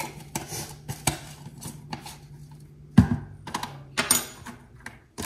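Kitchen clatter of a spoon clicking and knocking against a glass jar of minced garlic and a frying pan on the stove, with a heavier knock about three seconds in and a ringing clink about a second later, over a faint steady hum.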